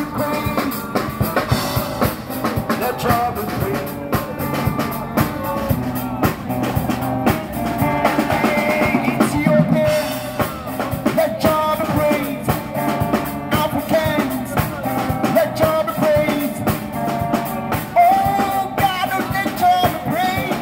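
Small live band playing amplified through PA speakers: electric guitar and drum kit, with a man singing into a microphone.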